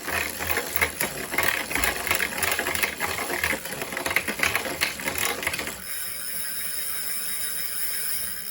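Wahoo KICKR Core direct-drive trainer under pedalling, making a harsh rhythmic rubbing, grinding noise that pulses with each pedal stroke; the rider suspects something rubbing inside the casing, worse with more torque. About six seconds in the pedalling stops and the sound changes abruptly to a steady, smoother whir as the trainer spins freely.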